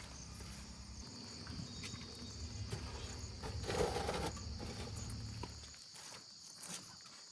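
Low diesel engine rumble that drops away about six seconds in, with a steady high insect chirr and scattered clicks and knocks.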